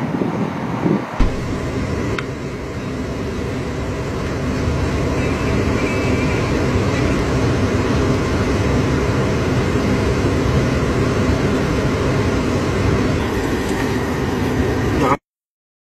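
Steady low rumble of a heavy military truck's engine running, which cuts off suddenly near the end.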